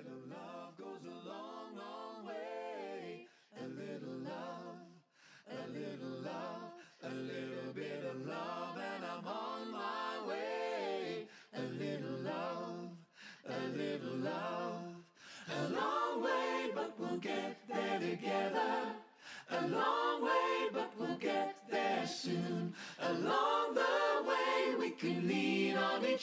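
Music: an a cappella song sung by a group of voices in harmony, in phrases with short breaths between them, getting louder about halfway through.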